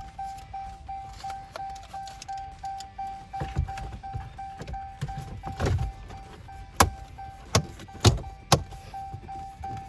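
Plastic dash trim panel being pressed and snapped back into place: a series of sharp clicks and knocks, the loudest in the second half. Under them runs a steady, rapidly repeating beep.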